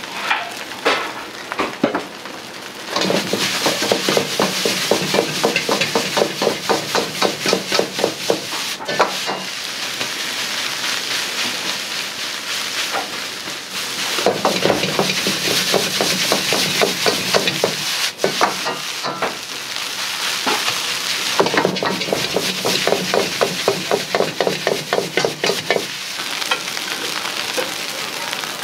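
Egg fried rice sizzling in a hot wok, with a metal ladle scraping and striking the wok about four times a second as it is stir-fried. The ladle work comes in three spells, with steady sizzling in between.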